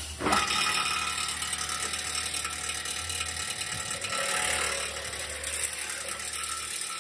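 An electric hose-skiving machine switches on just after the start and runs with a steady hum and whine. A rough scraping grind goes on as a hydraulic hose end is pushed into the spinning wheel to strip off its outer cover.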